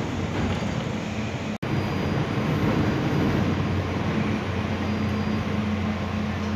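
Steady rumble and hum inside a KRL Commuter Line electric commuter train car as it runs, with a low drone underneath. The sound cuts out for an instant about a second and a half in.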